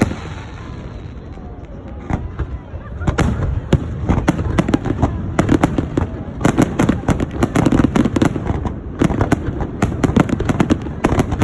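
Fireworks display going off: a few scattered bangs at first, then from about three seconds in a dense, rapid run of bangs and crackles.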